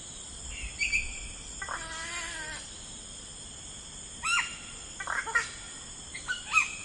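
Birds calling in a natural soundscape: a short chirp about a second in, a drawn-out wavering call about two seconds in, then several quick falling calls from about four seconds on. A steady high insect drone runs underneath.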